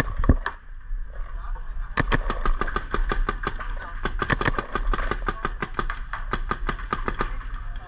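Paintball marker firing in rapid strings of sharp pops: a short burst at the start, then, after a pause, a fast stream of about seven shots a second for some five seconds that stops near the end.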